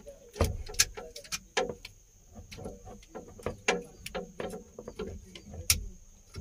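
Irregular clicks and knocks of a metal-cased excavator engine controller being handled and fitted into its mounting, its housing and cable connector tapping against the bracket. A faint steady high whine runs underneath.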